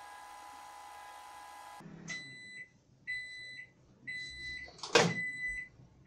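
Microwave oven running with a steady hum that cuts off suddenly about two seconds in, as the countdown ends. Its end-of-cycle beeper then sounds short high beeps about once a second, and a loud click near the end as the door is opened. The oven is working again on a new high-voltage fuse.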